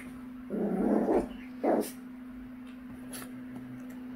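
Small dogs growling in play during a tug over a plush toy: two rough bursts, the first about half a second long and the second shorter, in the first two seconds. A steady low hum runs underneath.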